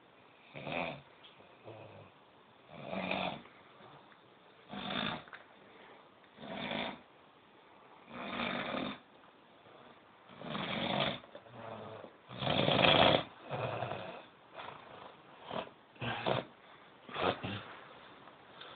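Heavy snoring, one rasping snore about every two seconds. The loudest snore comes about two-thirds of the way through, and near the end the snores turn shorter and quicker.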